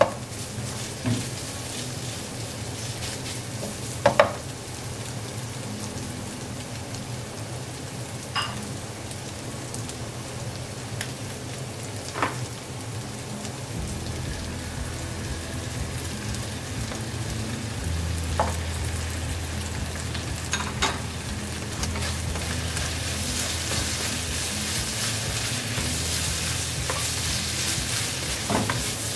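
Ground pork, garlic and onion sizzling in a nonstick pan while a spatula stirs and scrapes through it, with a few sharp taps of the spatula against the pan. A dark sauce is poured in partway through, and the sizzle is louder near the end.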